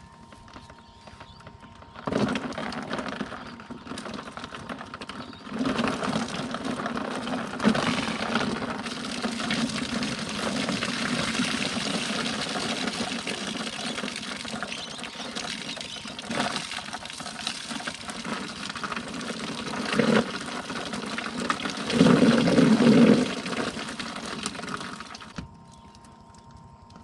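Rainwater pouring and splashing off a rooftop tent as it is caught for drinking water. It starts suddenly about two seconds in, runs unevenly with a louder gush a few seconds before the end, and stops suddenly near the end.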